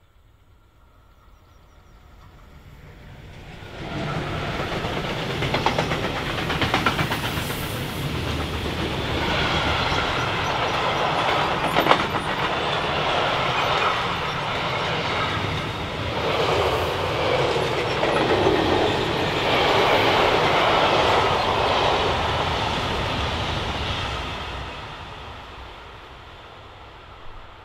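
Freight train of covered sliding-wall wagons and hopper wagons passing close by: it builds up, is loud from about four seconds in, with wheels clattering over the rails and a steady rumble, then fades away from about 24 seconds in as it recedes.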